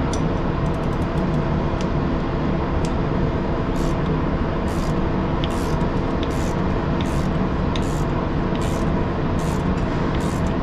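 Ratcheting clicks as the adjusting nut of a self-adjusting air-brake slack adjuster is wound down with a wrench: a few single clicks at first, then from about four seconds in a regular click a little more than once a second. A steady low mechanical hum runs underneath.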